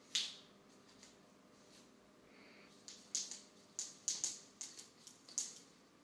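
A cat pawing and biting at a feather wand toy on a stone tile floor: short, sharp, scratchy clicks and rustles, one right at the start, then a quick run of about eight between three and five and a half seconds in.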